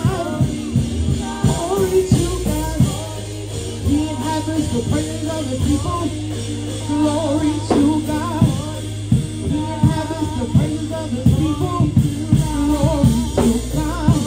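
Live church worship music: voices singing a melody over a band with bass and drums.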